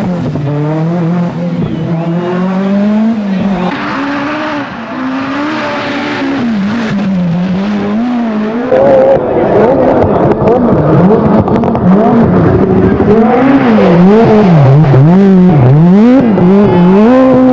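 Group B rally car engine revving hard, the pitch climbing and dropping with throttle and gear changes. It gets louder about halfway through, then swings up and down quickly several times.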